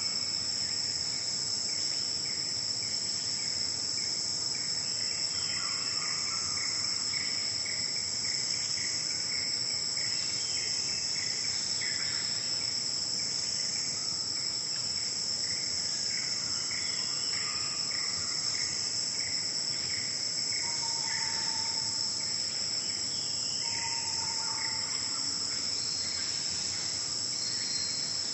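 A steady, high-pitched drone of forest insects that never lets up, with a faint pulsing insect chirr beneath it and scattered faint bird calls. Two short, low whistled notes come near the end.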